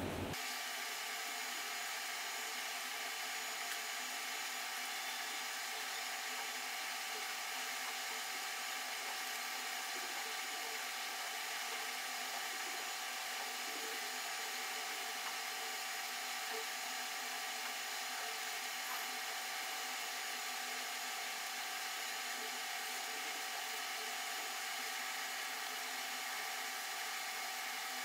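Steady high whirring hum made of even hiss and several fixed tones, like a small drill. It is most likely quiet room noise played back sped up eightfold, and it starts abruptly.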